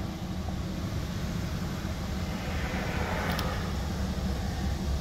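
An engine idling with a steady low rumble.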